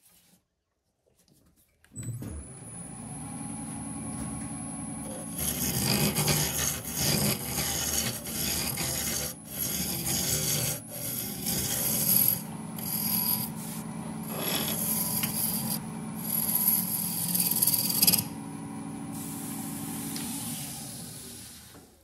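Wood lathe starting up about two seconds in with a steady motor hum and a thin high whine, then a gouge cutting into the spinning maple and epoxy resin blank in several rough, uneven passes. Near the end the cutting stops and the lathe runs on briefly before winding down to a stop.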